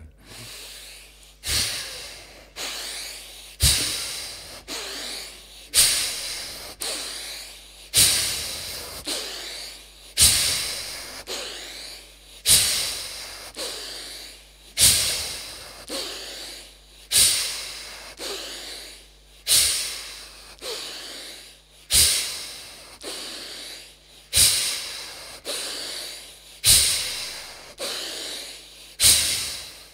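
Bhastrika (bellows breath) pranayama: slow, forceful breathing with a sharp, loud exhalation about every two seconds and a softer inhalation between them.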